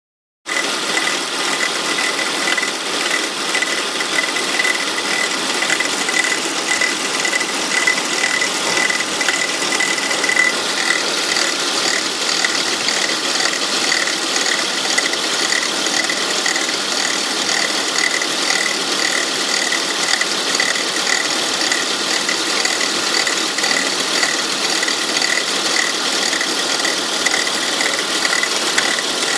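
Volvo S80 2.3T turbocharged five-cylinder engine idling with a rapid, even clicking from a failing alternator pulley. The clicking is the sign of a bad alternator pulley, heard when the engine is started cold.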